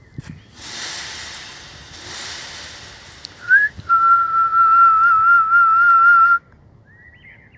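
A woman whistling through pursed lips: a short upward slide, then one held, slightly wavering note for about two and a half seconds that cuts off abruptly. Before it there is a couple of seconds of rushing noise.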